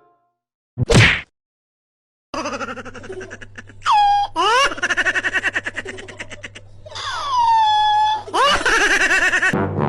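A short loud burst about a second in, then a person laughing hard in rapid bursts, broken by high squeals that glide down in pitch.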